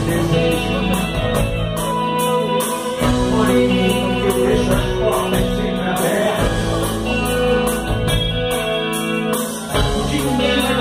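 Live rock band playing: electric guitars, bass guitar and drum kit, with a saxophone.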